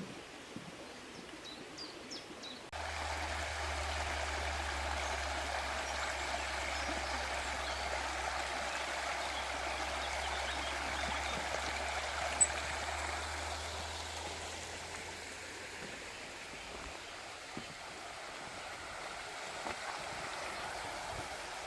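Small stream running, a steady rush of water that starts abruptly about three seconds in. Before it, a few faint bird chirps; one sharp click about halfway through.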